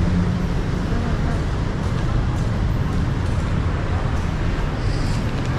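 Steady street traffic noise: a continuous low rumble of passing vehicles, with faint voices under it.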